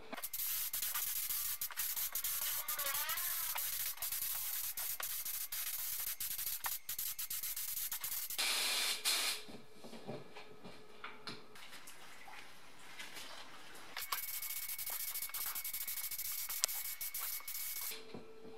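Compressed-air paint spray gun hissing as it sprays paint in passes. A long run of hiss gives way to a louder burst about eight seconds in, then a quieter gap, then another run of hiss near the end.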